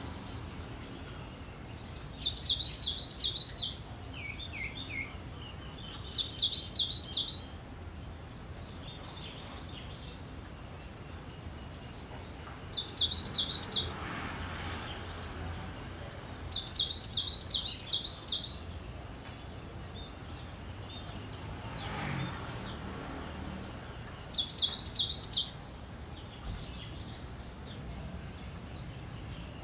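Cinereous tit (gelatik batu) singing: five loud bursts of quickly repeated high, sharp notes, each lasting about a second, one near the middle running nearly two seconds, with a few softer, lower notes between them.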